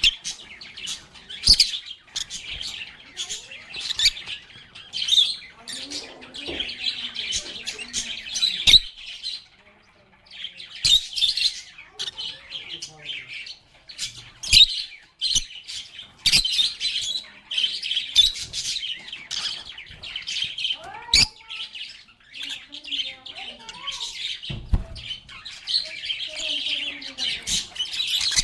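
A flock of pet lovebirds chattering nonstop with rapid, shrill chirps and squawks, with many sharp, abrupt calls mixed in and a brief lull about ten seconds in.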